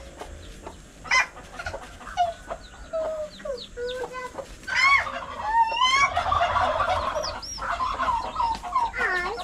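Chickens clucking, with chicks peeping high, and a louder, busier run of calls about halfway through.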